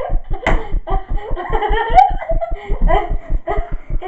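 Children laughing, over a fast, even low thumping of about seven beats a second, a recording glitch from a new camera. There is a sharp click about two seconds in.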